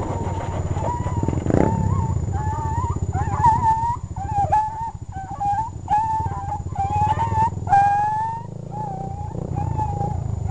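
A dog whining in a run of short, high, wavering notes, about a dozen, one after another, over a steady low rumble.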